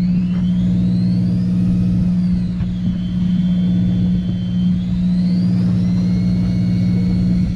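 Fishing boat's engine running with a steady low hum. Over it, a fishing reel winds in line with a high whine that rises, dips, holds level, then rises again and holds.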